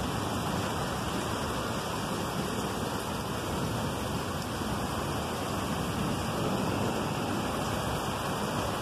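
Heavy rain pouring down steadily on wet pavement, a dense even hiss with no let-up.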